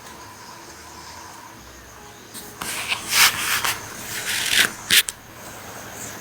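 A sleeping man snoring. After a quiet stretch of about two and a half seconds come several harsh, rasping breaths, the loudest about three seconds in, ending in a short sharp snort near five seconds. The uploader calls this kind of pause in snoring dangerous.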